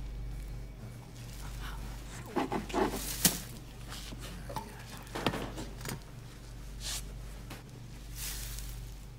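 Scattered knocks and rustling over a steady low hum, with a cluster of sharp knocks about two and a half to three seconds in and another about five seconds in.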